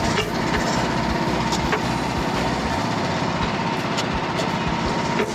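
Frontier portable band sawmill's gas engine running steadily, with a thin high tone held throughout.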